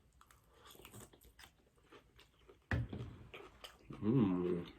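Close-miked chewing and wet mouth noises from eating pho noodles and beef, with small clicks throughout and a short hummed "mm" near the end.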